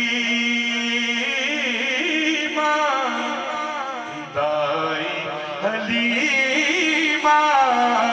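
Male naat reciter singing, amplified through a microphone, in long ornamented phrases that slide up and down in pitch, over a steady held drone note.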